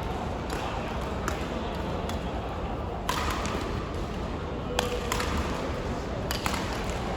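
Badminton rackets hitting a shuttlecock in a doubles rally: sharp hits about every one and a half to two seconds, over hall background noise and voices.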